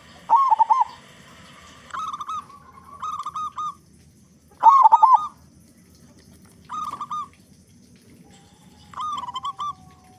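A local zebra dove (perkutut) cooing: six short phrases of quick, rippling arched notes with pauses between them, the loudest about half a second in and about four and a half seconds in.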